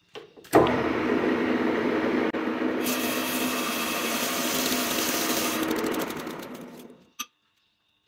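A metal lathe starts up and runs, spinning a white plastic roller in its chuck while the tool turns off long ribbons of swarf. A bright hiss of the cut joins for a few seconds in the middle, then the lathe runs down and stops, with a single click just after.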